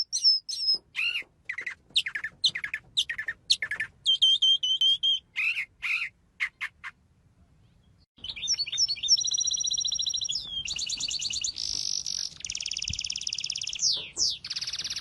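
A small bird chirping in short separate calls, then after a pause of about a second launching into continuous song of fast trills and buzzy held notes.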